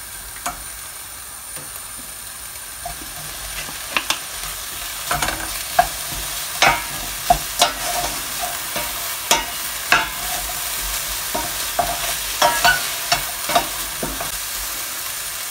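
Minced meat sizzling in a stainless steel pan, its water mostly cooked off. From about four seconds in, a spoon repeatedly clicks and scrapes against the pan as diced potato and carrot are stirred into the mince.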